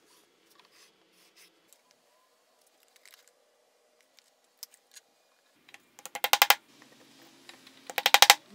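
Faint clicks of a steel combination square and ruler being handled, then two quick bursts of rapid sharp taps about six and eight seconds in: a wooden mallet striking a metal punch set in a bolt hole of a wooden block.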